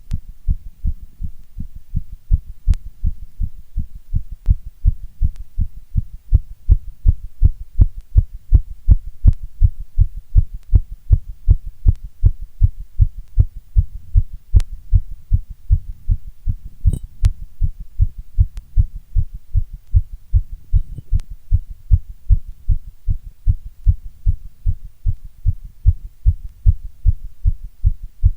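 A person's heartbeat heard close up: a steady, regular run of deep thumps, getting somewhat stronger after the first few seconds.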